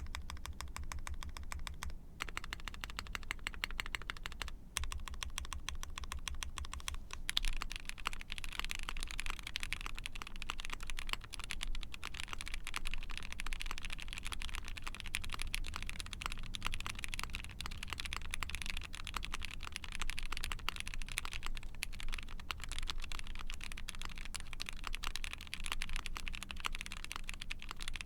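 Fast, continuous typing on an ai03 Vega mechanical keyboard with a POM plate, Gateron Mini linear switches lubed with 205g0, and GMK keycaps. The typing grows denser and louder about seven seconds in.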